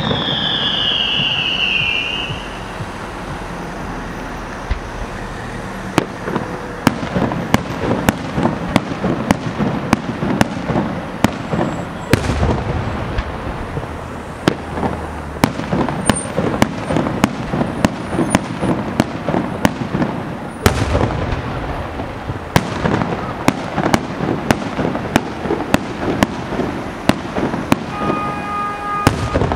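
Aerial fireworks display. A descending whistle over the first two seconds, then a dense, continuous run of sharp cracks and bangs from bursting shells and crackling effects, with a couple of heavier booms in the middle.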